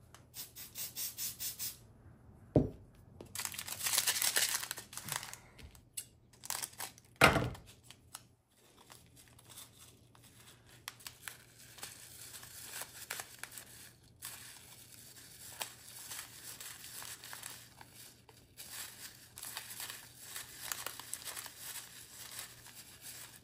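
Small plastic bags of diamond-painting drills being torn open and crinkled in the hands: a quick run of ticks, then rustling. There are two sharp taps, about two and a half and seven seconds in.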